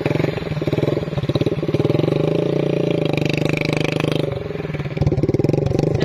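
A 70cc motorcycle's single-cylinder engine running as the bike rides by, its note rising and holding for a couple of seconds, then falling about four seconds in to a slower, pulsing beat.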